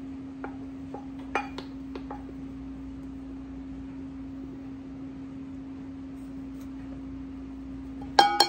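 A small glass cup scooping flour in a large glass flour jar: a few soft taps and scrapes, then near the end several sharp glass clinks that ring on briefly. A steady low hum runs underneath.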